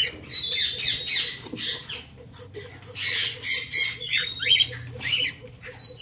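Cockatiels calling: clusters of shrill chirps and squawks that sweep up and down in pitch, repeated several times.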